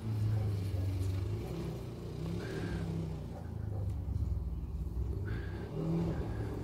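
Distant vehicle engine giving a low rumble that swells and eases a few times as it is driven.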